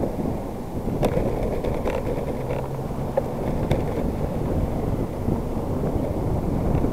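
Wind buffeting the microphone and the steady rumble of a bicycle riding over pavement, with a few light clicks and rattles from the handlebar.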